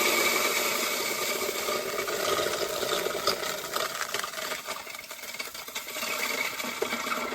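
3000 W electric grain mill running and grinding dry corn: a steady motor whine over a rattle of kernels, gradually getting quieter.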